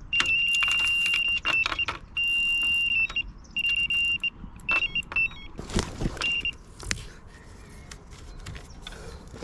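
Electronic carp bite alarm sounding a steady high tone, at first for about two seconds and then in shorter stretches with gaps, stopping about six and a half seconds in: a run, with a fish pulling line off the rod. Scattered clicks and knocks sound across it as the rod is handled.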